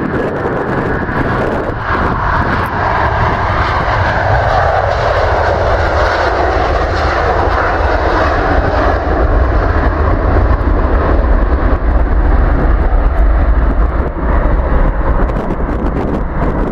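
Airbus A330's twin jet engines at takeoff power as the airliner rolls down the runway past the microphone: a loud steady noise whose whine falls in pitch as it goes by, then a deep rumble that grows stronger in the second half as it lifts off.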